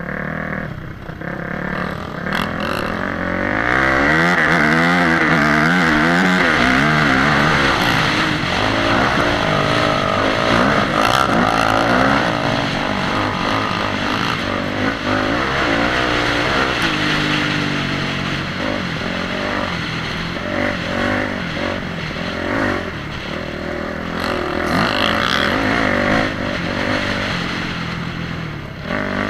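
Motorcycle engine revving, its pitch rising and falling over and over, loudest for several seconds early in the stretch.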